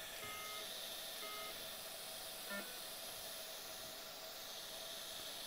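Two short electronic beeps from endoscopy-room medical equipment, about a second apart, over a steady faint hiss.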